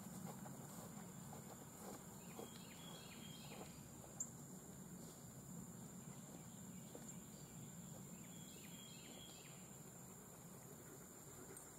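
Faint summer field ambience: a steady high-pitched insect drone, with two short runs of chirps and a single click about four seconds in.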